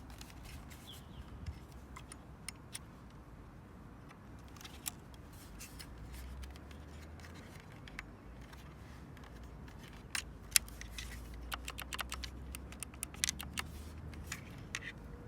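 Irregular light clicks and taps, coming thicker about ten seconds in, over a faint low hum.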